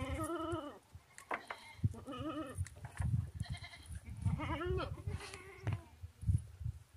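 Goats bleating: four or five wavering calls in a row, over low thumps and knocks.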